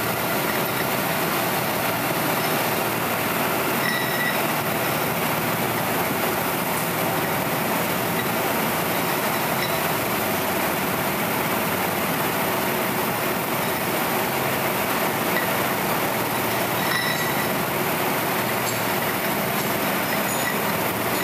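Vibratory bowl finisher running, its load of steel shot media and aluminum parts churning in a soapy compound to deburr them: a steady, dense metallic rattling hiss, with a couple of brief faint rings.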